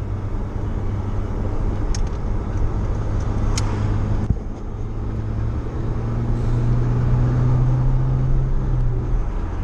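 Pickup truck engine and road noise heard from inside the cab while driving. The engine note dips briefly about four seconds in, then climbs slowly in pitch as the truck speeds up; two light clicks sound in the first half.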